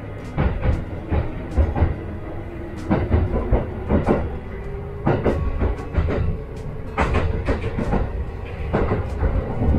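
A Kintetsu train's wheels running on the track, heard from inside the car: a low rumble with irregular sharp clacks as the train pulls out of the station and gathers speed.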